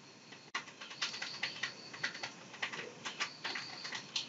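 Computer keyboard being typed on: quick runs of light key clicks with short gaps between them, as a string of minus and plus signs is entered.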